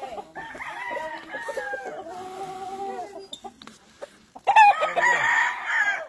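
Gamefowl roosters crowing: one long crow of about three seconds, then a second, louder crow starting near the end.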